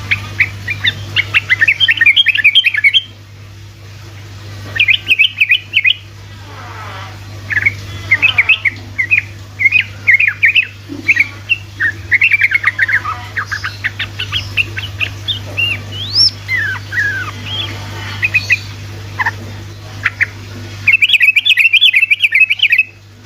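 Yellow-vented bulbul (trucukan) singing its rapid chattering 'ropel' song: quick runs of short, clear notes in several bursts with brief gaps between them, over a steady low hum.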